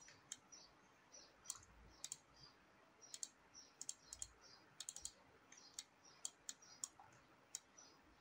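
Faint, irregular clicking of a computer mouse and keyboard as the software is operated, a few clicks a second at times with short gaps between.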